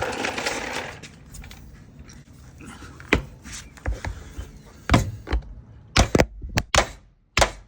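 Tire plug insertion tool being forced into a punctured tire to push a string plug in without rubber cement: a run of sharp knocks and clicks from about three seconds in.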